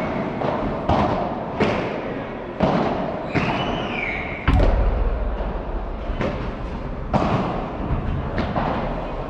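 Padel rally: the ball being struck by solid paddles and bouncing off the court and glass walls, sharp pops about once a second, with one heavier thud about four and a half seconds in.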